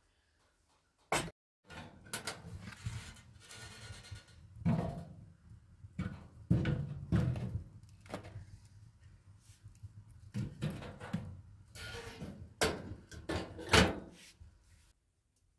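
Split firewood knocked and clattered into a sheet-metal wood-burning stove, wood striking the thin metal body. Near the end the stove's metal door is swung shut and latched, giving the two loudest clanks.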